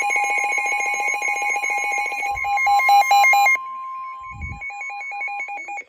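Several NOAA weather radios sounding a severe thunderstorm warning alert: a steady warning tone overlaid with the radios' own rapidly pulsing alarm beeps. One set of beeps cuts off about three and a half seconds in, and the tone and remaining beeps stop just before the end.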